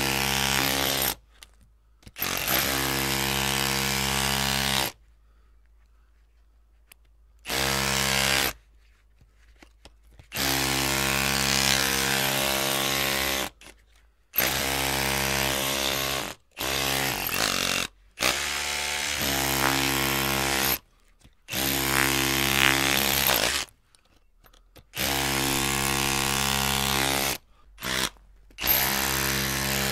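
Electric drill motor running in repeated bursts of one to three seconds, stopping and starting again about ten times with short silent gaps between.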